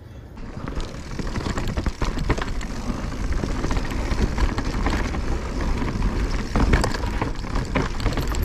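Mountain bike riding over a root-covered trail: a steady rush of wind on the microphone with rattling clicks from the bike, starting suddenly about half a second in.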